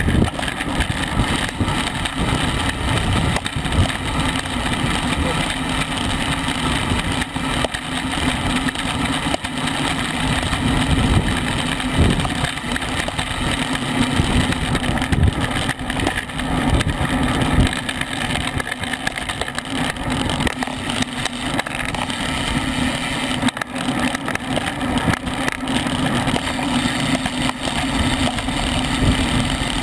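Steady wind noise buffeting the microphone of a camera on a racing bicycle moving at about 20 to 25 mph, with a low steady hum underneath.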